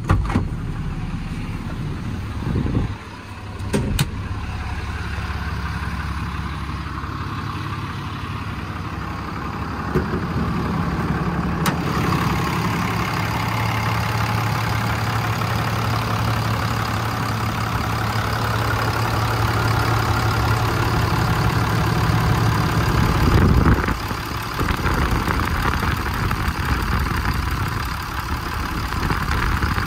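Cummins 6.7-litre turbo-diesel in a Ram 5500 work truck idling steadily, with a few sharp clicks or knocks in the first few seconds.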